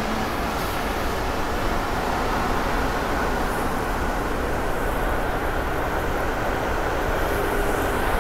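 Steady running noise of a Santiago Metro train heard from inside the carriage as it travels between stations.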